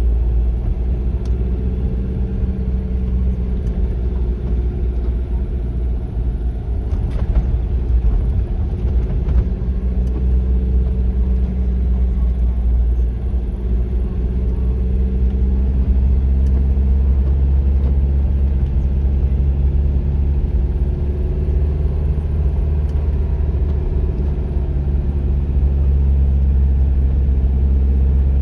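A car running steadily on the road, with a heavy low rumble and an engine note that drifts slightly in pitch, and a few light clicks about seven to nine seconds in.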